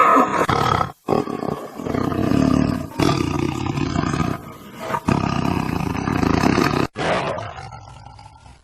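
Tiger roaring, about five roars in a row, each cut off abruptly by an edit before the next; the last one fades out near the end.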